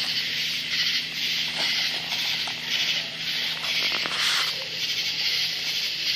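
Steady high-pitched chorus of night insects, pulsing about twice a second, over a faint steady low hum, with a few small rustles and clicks.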